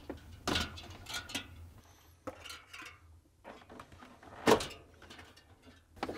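Plastic wire-harness connectors in a refrigerator freezer being unlatched and pulled apart by hand: a series of small clicks and rattles, the loudest about four and a half seconds in.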